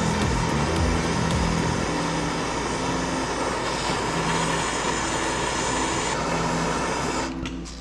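A gas torch burning with a steady hiss, heating an axle seized in its hub to break it loose, over background music with a low bass line. The hiss cuts off about seven seconds in.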